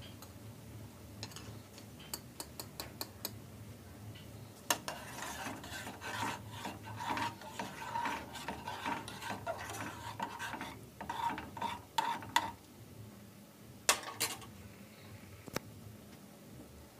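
A spoon stirring milk tea in a metal saucepan. A few light taps come first, then several seconds of stirring and scraping against the pan, and a couple of sharp knocks of the spoon on the pan near the end.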